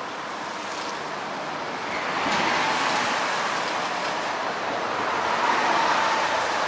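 Road traffic passing on a bridge: a steady rush of trucks and cars going by close alongside, growing louder about two seconds in.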